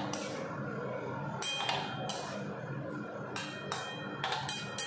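Metal spatula scraping and clinking against a steel kadai while stirring vegetables, in irregular strokes about twice a second.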